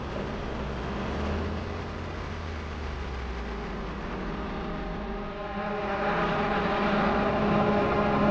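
A car running as it drives, a steady low hum that grows louder about five and a half seconds in.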